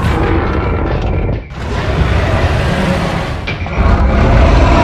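Dramatic background music layered with cartoon battle sound effects: a long hissing energy blast, then a monster's roar near the end.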